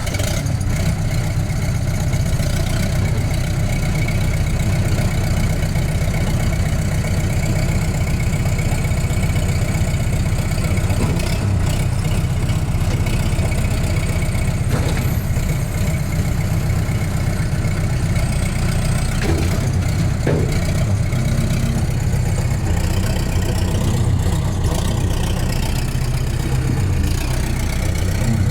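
Case 1840 skid steer's diesel engine running steadily at a low, even speed.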